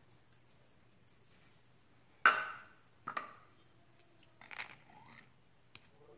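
Kitchen handling sounds: a sharp knock with a short ring, as of a small glass being set down on the counter, a smaller knock about a second later, then soft knife and hand noises on a plastic cutting board and a few light ticks near the end.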